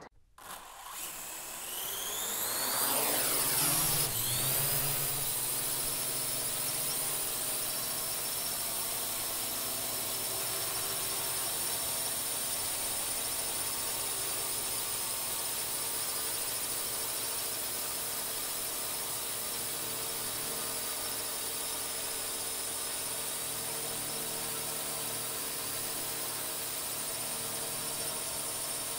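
Quadcopter drone's motors spinning up with a rising whine over the first few seconds, then settling into a steady multi-tone whir with hiss as it flies.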